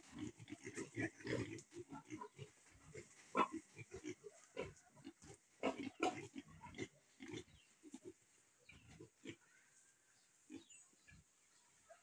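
A group of piglets grunting in short, irregular bursts, busy at first and thinning out over the last few seconds.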